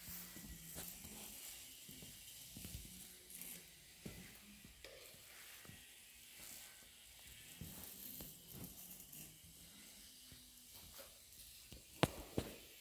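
Quiet room with a steady faint hiss, soft scattered taps from footsteps and handling as someone walks over a terracotta tile floor, and two sharp clicks near the end.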